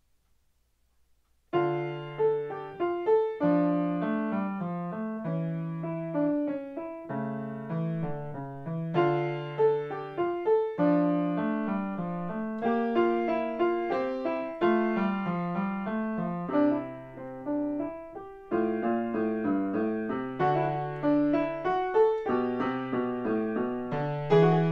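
Solo grand piano playing a short student piece, starting about a second and a half in: a melody in separate notes over low bass notes and chords.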